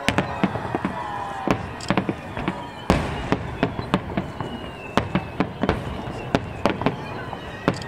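Aerial firework shells bursting in quick succession: a dense run of sharp bangs and deeper booms, the loudest about three seconds in.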